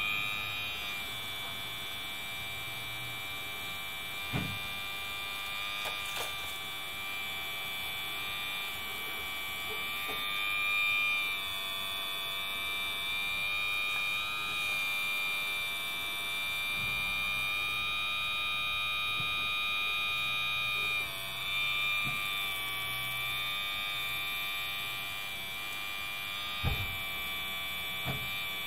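Electric-driven hydraulic pump of an RC model O&K RH6 excavator whining steadily, its pitch dipping and rising a few times as the boom and bucket work under load. A few light knocks come from the bucket.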